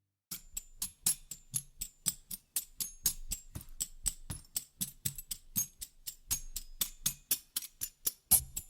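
Background music: after a moment of silence, a track starts with fast, even percussion ticks like a shaker or tambourine, about five a second, over a faint low line.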